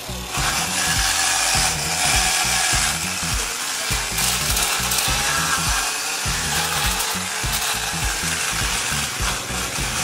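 Handheld electric angle grinder fitted with a sanding pad, running with a steady high whirring hiss. It comes on within the first half second and keeps running evenly.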